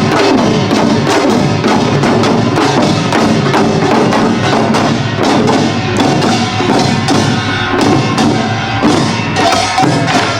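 Korean pungmul percussion band playing a fast, dense rhythm: small gongs (kkwaenggwari), hourglass drums (janggu), barrel drums (buk) and a large gong (jing) struck together without a break, in the Imsil Pilbong nongak style.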